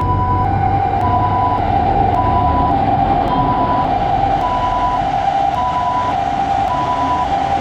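Railroad crossing alarm sounding, two tones alternating high and low about once a second, over the low rumble of a passing train.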